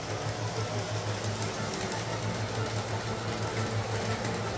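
Electric model train locomotive running past on metal track, its motor whirring with a steady low hum.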